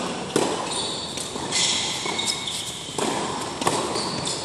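Tennis rally: several sharp pops of rackets striking the ball and the ball bouncing on the court, with short high squeaks of sneakers on the court surface in between.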